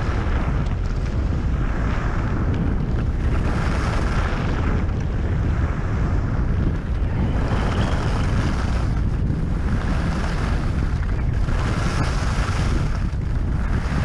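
Wind buffeting the GoPro Hero 5 Session's microphone on a fast ski descent, heard as a steady rumble, over the hiss of skis on groomed corduroy snow that swells and fades every one to two seconds with each turn.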